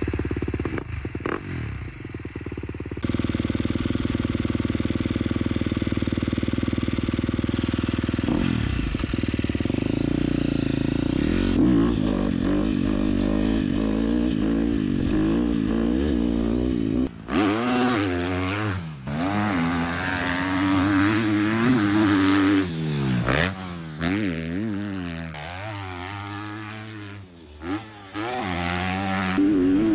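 KTM SX-F 250 four-stroke single-cylinder motocross engine running at a steady note for the first half, then revving up and down over and over as the bike is ridden hard.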